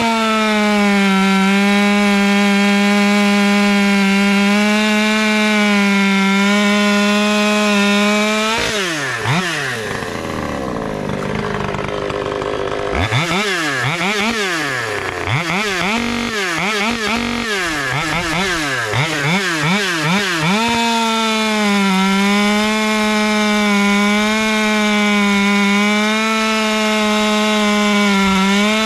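Husqvarna T540 XP Mark III top-handle two-stroke chainsaw cutting through dry ash at a steady full-throttle note. About nine seconds in it comes out of the cut and drops toward idle, then is revved up and down in a series of throttle blips. A second long steady cut starts about twenty-one seconds in. These are long back-to-back break-in cuts that let the new saw tune itself in.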